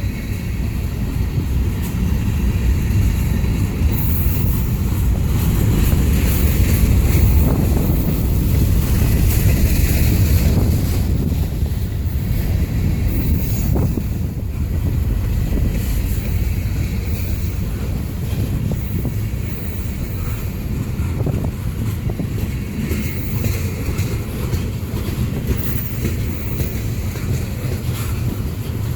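Wind buffeting a phone microphone: a loud, steady low rumble that swells about six to ten seconds in, then eases off a little.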